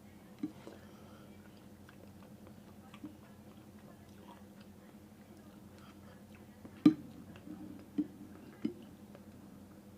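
A person chewing noodles quietly, with a few short knocks of utensils against the bowl, the loudest about seven seconds in, over a low steady hum.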